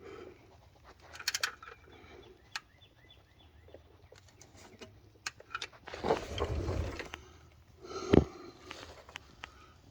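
Tool handling while a digital torque wrench is set up on the oil drain plug: scattered clicks and taps, a rustling shuffle about six seconds in, and a sharp knock about eight seconds in.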